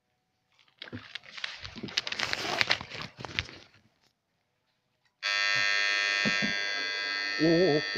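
Susan 1030SMP electric fish shocker switching on suddenly about five seconds in and buzzing steadily at a high pitch. Before it comes a short stretch of rustling and knocking noise.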